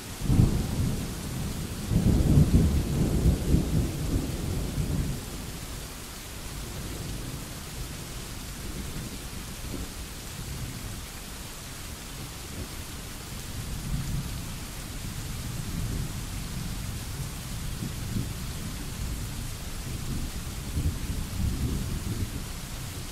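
Thunderstorm: steady rain hissing throughout, with rolling thunder. A rumble begins right at the start and swells to its loudest about two to five seconds in. Softer low rumbles come back in the second half.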